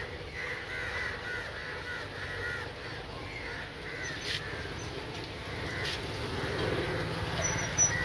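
Crows cawing over and over, with a couple of sharp knocks in between.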